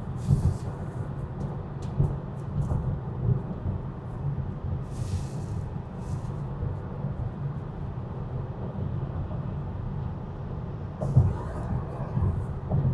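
Tyre and road rumble heard inside a Tesla electric car's cabin cruising at about 50 mph, a steady low drone with no engine note, broken by a few brief faint rustles.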